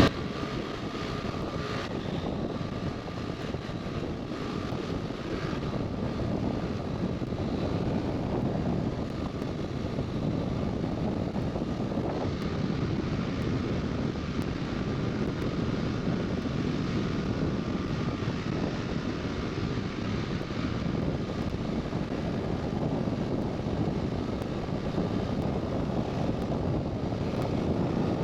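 A steady engine drone with rushing noise, even in level and pitch throughout.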